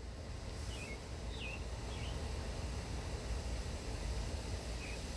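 Backyard ambience: a steady low background rumble with a handful of short, scattered bird chirps.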